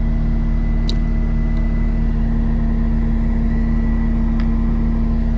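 Caterpillar 259D skid steer's diesel engine running at a steady speed, an unchanging drone, with a light click about a second in.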